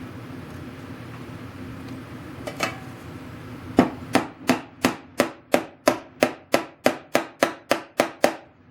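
A small hammer tapping on a wooden machinist chest: a couple of knocks, then a quick even run of about fifteen light strikes, roughly three a second, as if driving in a small nail or pin.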